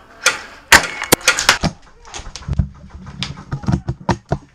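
Airsoft gunfire in a wooden hut: an irregular string of sharp cracks, thickest in the first second and a half, with scattered ones after.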